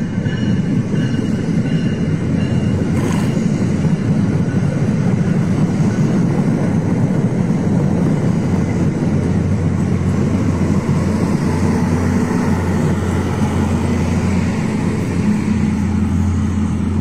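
Passenger train going by, a steady rumble with a low hum that grows stronger in the second half.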